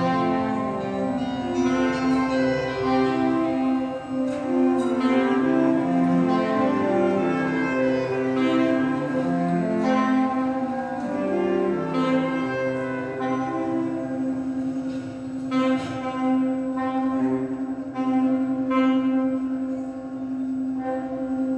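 Saxophone quartet of soprano, alto, tenor and baritone saxophones playing slowly: one voice holds a steady note while the lower and upper parts move in stepping lines around it.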